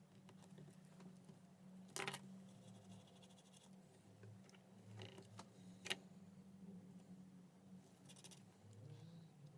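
Near silence: a faint steady low hum with a few soft clicks and scratches, about three of them standing out, and a light rattle near the end.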